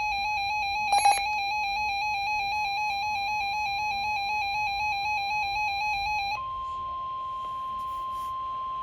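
Weather radio sounding alert tones for a tornado warning. First a buzzy electronic alarm tone with a slight regular wobble, broken by a brief loud click about a second in. About six seconds in it changes to the steady single-pitch 1050 Hz warning alarm tone of NOAA Weather Radio.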